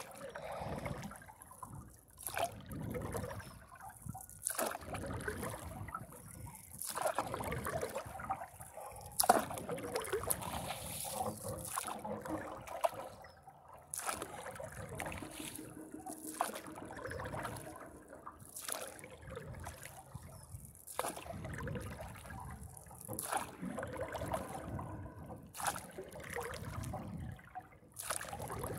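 Single-blade paddle strokes in lake water beside a paddleboard: splashing and trickling water, swelling with each stroke about every two seconds.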